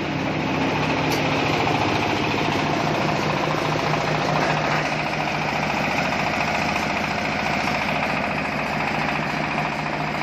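Corn sheller machine running steadily on a test run, a constant low engine hum under a dense mechanical clatter.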